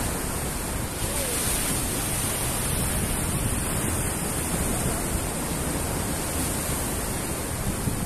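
Sea surf surging and breaking against a rock breakwater: a steady, even rush of water noise.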